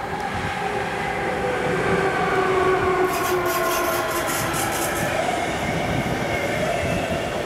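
Electric passenger train passing at speed, led by a Siemens Vectron Class 193 locomotive: its whine falls in pitch as it goes by. The whine gives way to the rushing noise of the coaches, with a run of rapid wheel clicks about three seconds in.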